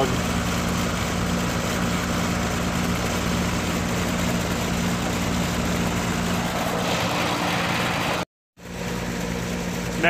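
Heat pump outdoor unit running in heating mode: a steady hum of the compressor and fan. It cuts out briefly near the end, then carries on.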